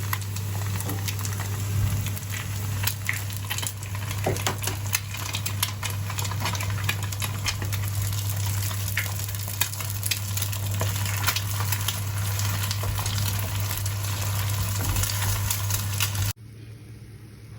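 Food sizzling and crackling in a hot frying pan, over a steady low hum. About a second before the end it cuts off abruptly to a quieter steady hiss.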